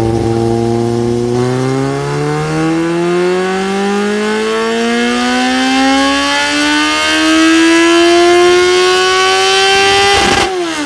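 Kawasaki Z750's inline-four engine through an Arrow aftermarket exhaust, making a full-throttle pull on a roller dyno: after a moment at steady revs, the pitch climbs steadily for about nine seconds, then the throttle is shut near the end and the pitch drops sharply.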